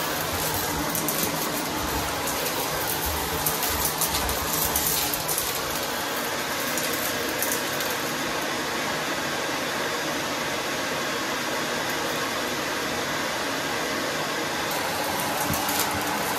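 Vacuum cleaner running steadily while it picks up small debris from a hard floor. Grit ticks and crackles as it is sucked up, most densely in the first six seconds or so.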